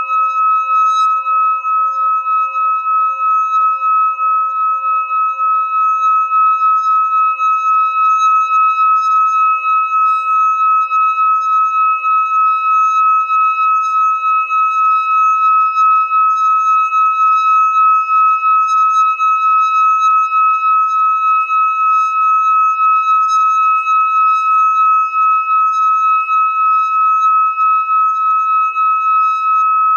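Hand-held metal singing bowl sung by circling a mallet around its rim: one steady high ringing tone with a fast, even wobble and fainter overtones above and below it.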